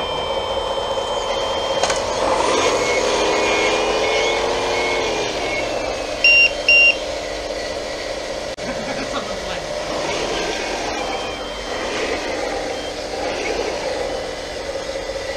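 1/14-scale RC hydraulic wheel loader working, its motor and hydraulic pump whining and rising and falling in pitch as it moves. There is a run of short reversing-style beeps, then two louder beeps about six seconds in.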